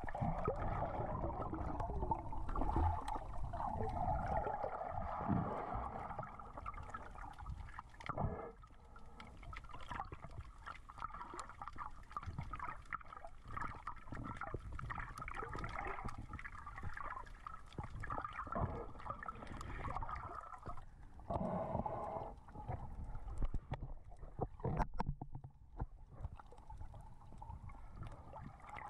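Water heard from underwater while snorkelling: a muffled, steady gurgling and sloshing with many scattered small clicks and crackles.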